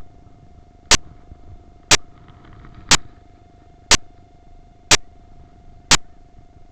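Sharp clicks evenly spaced once a second, like a ticking, over a faint steady tone.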